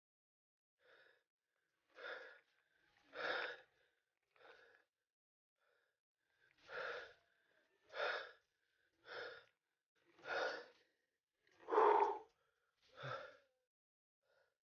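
A cyclist breathing hard from the effort of pedalling up a steep climb: short, heavy breaths about once a second, with a brief pause partway through.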